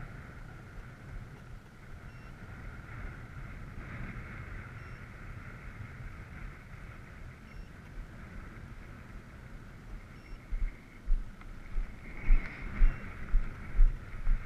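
Distant motor-and-propeller drone of a radio-controlled scale model Cessna 182 in flight, swelling and fading as it passes. In the last few seconds strong wind buffets the microphone with irregular low thumps, which are the loudest sound.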